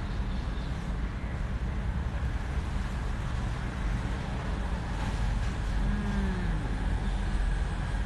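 Steady low rumble with a hiss above it, and a faint falling tone about six seconds in.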